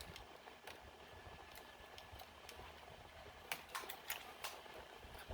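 Scattered light clicks and taps of small tools and laptop parts being handled during disassembly, with a quick cluster of sharper clicks about three and a half seconds in, over a faint steady hum.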